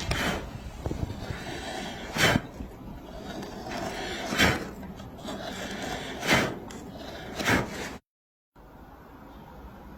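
Wood carving by hand: a carving tool is struck or pushed into the wood in about five separate sharp strokes, roughly every two seconds, with scraping between them. The sound cuts off about eight seconds in and gives way to a steady hiss.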